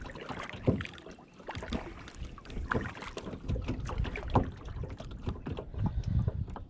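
Kayak paddle strokes dipping and splashing in choppy water, irregular splashes a second or so apart, with wind rumbling on the microphone.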